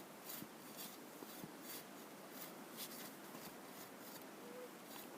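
Hand saw cutting through a small tree trunk in short push-and-pull strokes, about two a second at an uneven pace, the cut almost through.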